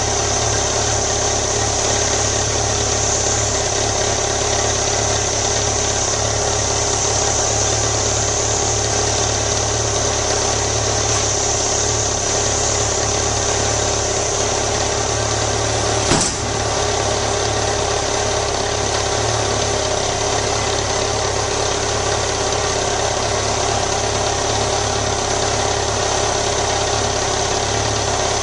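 BMW motorcycle engine idling steadily at about 1,000 rpm while warming up. A single sharp click sounds about 16 seconds in.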